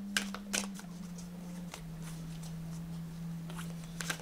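A deck of oracle cards being shuffled by hand: a few sharp clicks and snaps of the cards, over a steady low hum.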